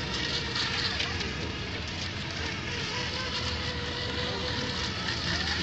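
Several small radio-controlled racing boats running at speed, their motor whines gliding up and down in pitch as they turn, over a steady hiss and low rumble.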